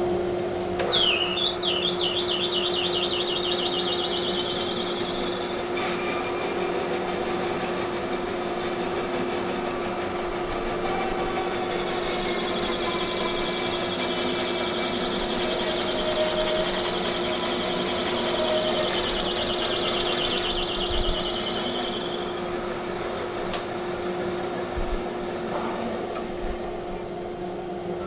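Big resaw bandsaw with a 4.5-horsepower motor and a dust collector running as a steady hum while the blade cuts through the end of a cherry log to square it. A high squeal rises in the cut about a second in and again for several seconds midway, and the cutting noise stops about twenty seconds in, leaving the machines running.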